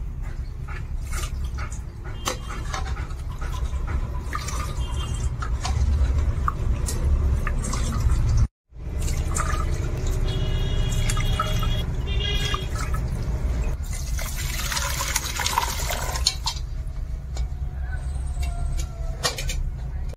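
Curds and whey ladled and poured from an aluminium kadhai into a cotton cloth over a strainer: liquid splashing and draining through, with scattered clinks of the steel ladle against the pan. A louder rush of pouring comes about two-thirds of the way through.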